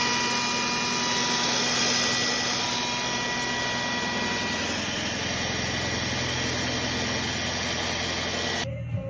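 Electric drill running steadily at constant speed while boring mounting holes through the mower's frame for the loader brackets, then cutting off abruptly near the end.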